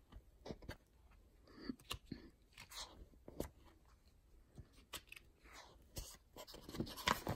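Pages and cover of a picture book being turned and handled: faint paper rustles and soft scattered taps, a little busier near the end.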